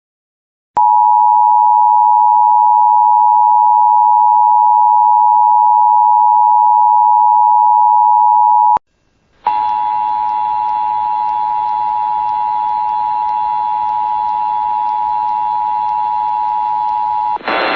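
Emergency Alert System attention tone: a steady single high tone for about eight seconds, cut off with a click, then after a brief gap the same tone again for about eight seconds with hiss and hum beneath it. It is the alarm that opens an emergency alert broadcast.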